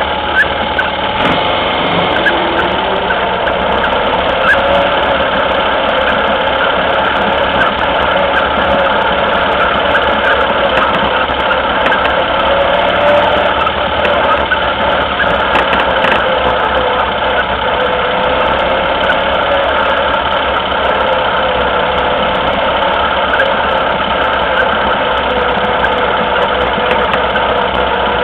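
Autocross buggy engine idling steadily at close range.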